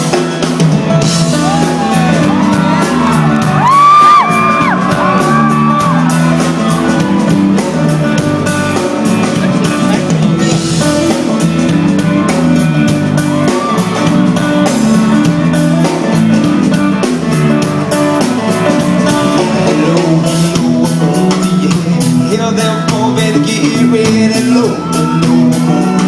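A live band playing amplified music with a steady beat, with voices whooping and shouting over it, strongest a few seconds in.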